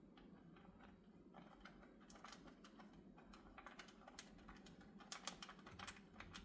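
Faint, irregular small clicks and scrapes of a screwdriver driving screws into the range's switch mounting, the screws resisting because they don't thread in easily.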